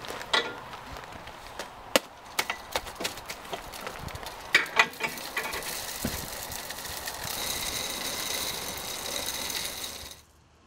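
Bentonite hole-plug chips poured from a paper bag down a well casing to seal a monitoring well. First a run of sharp clicks and rattles as the chips start to fall and the bag is handled, then a steady rushing hiss from about six seconds in that cuts off suddenly near the end.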